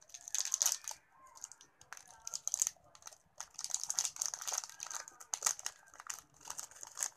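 Plastic instant-coffee sachet crinkling and rustling in irregular bursts as it is bitten and torn open by hand.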